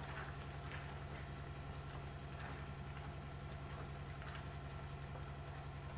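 Thick beetroot halva bubbling in a pan while a wooden spoon stirs and scrapes through it a few times, over a steady low hum.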